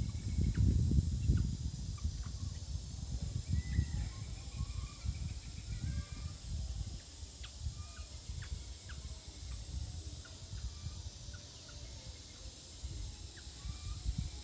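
Outdoor animal ambience: many short, scattered chirps and squeaks over a steady high hiss, with a fluctuating low rumble that is loudest in the first couple of seconds.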